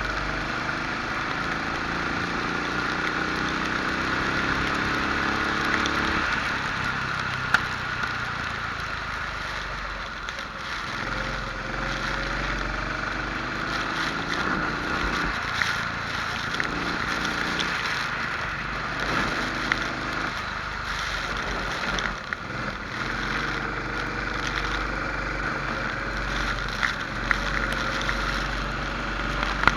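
Rental kart engine heard on board, its pitch rising under acceleration and falling off into corners, over a steady rush of noise, with a few sharp knocks.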